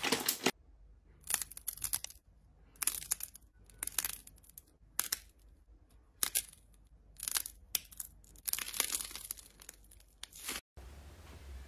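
Slime being squeezed and pulled apart by hand, crackling in short bursts about once a second.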